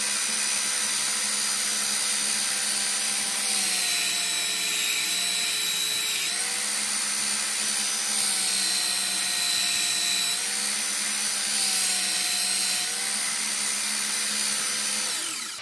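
Einhell TC-BS 8038 belt sander running while a steel blade is ground on its belt to sharpen the edge. The motor's pitch drops and recovers several times as the blade is pressed on and lifted. Near the end it is switched off and winds down.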